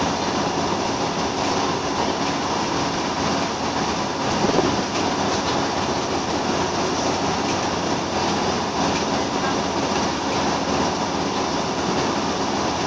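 Steady interior noise of a Scania L94UB Wright Solar single-deck bus on the move: the engine running under way, mixed with road and body noise, with a brief louder bump about four and a half seconds in.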